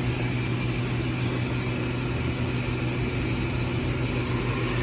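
Steady machine hum of a powered-on CNC machining centre: a constant low drone with a few higher tones above it and a noisy hiss, without changes in level.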